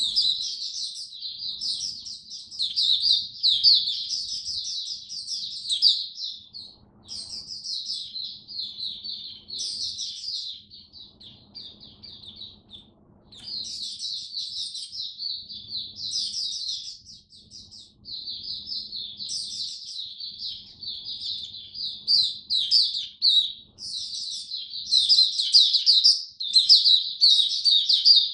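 Caged white-eye singing: long runs of fast, high warbling notes lasting several seconds each, broken by short pauses. The song grows louder and denser near the end.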